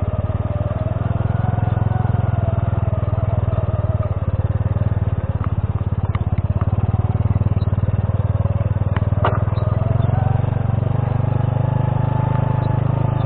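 Honda C70 step-through motorcycle's single-cylinder four-stroke engine running steadily at low speed on a rough stone track. A couple of short sharp knocks come through, about six and nine seconds in.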